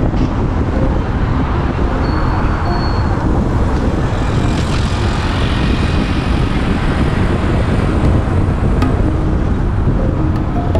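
Steady road noise of a car driving on a city road: tyre and engine noise from the moving vehicle, mixed with surrounding traffic.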